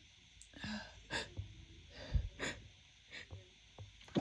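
A person's short, soft breaths, gasps and sniffs between hay-fever sneezes, about half a dozen in a row.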